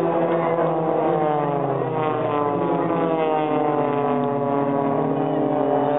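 Propeller engines of several Extra 300 aerobatic aircraft flying by in formation, a droning of several overlapping tones, some sliding down in pitch as the aircraft pass.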